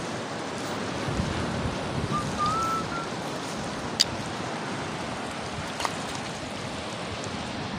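Steady rush of surf and wind, with a faint short rising whistle about two seconds in and a sharp click about four seconds in.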